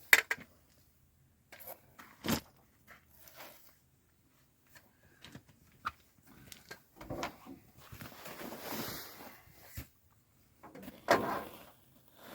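Scattered knocks and clatter from hands-on construction work, with a few seconds of rough scraping noise in the middle and a louder clatter near the end.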